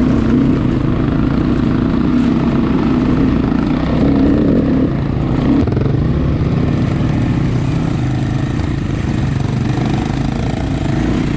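Off-road motorcycle engine running steadily at moderate revs, the pitch rising briefly about four seconds in and then settling.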